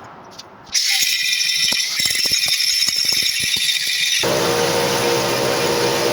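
Rebuilt Lincoln welder starting up: a sudden rattling clatter begins about a second in, and after about four seconds it gives way to a steady running noise with a low hum.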